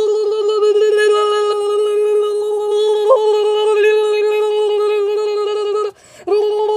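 A person's voice holding one long, steady high note for about six seconds, with a brief upward crack about halfway, then breaking off and starting the same note again near the end: a drawn-out strained cry voicing a toy dog's reaction to sour Warheads candy.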